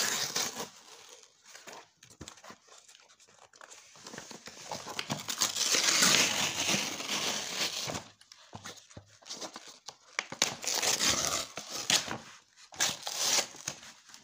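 Parcel packaging being cut and torn open by hand, crinkling and rustling in uneven bursts. It is loudest about five to eight seconds in.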